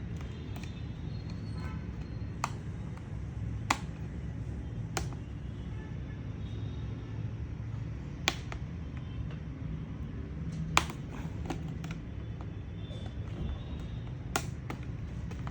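Sharp, irregular clicks and taps, a handful of them spread unevenly, from hands and a small screwdriver working on the laptop's plastic bottom case, over a steady low hum.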